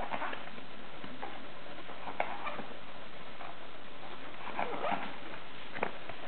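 Pages of a papercraft book being turned by hand: short papery flaps and rustles, about four of them, over a steady hiss.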